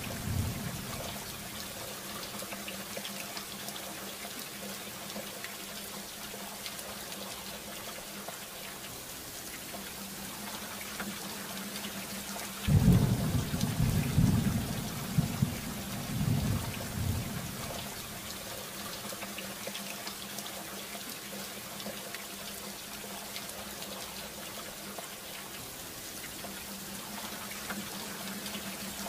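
Steady rain falling, with a sudden clap of thunder about thirteen seconds in that rumbles on for about five seconds before fading back to the rain.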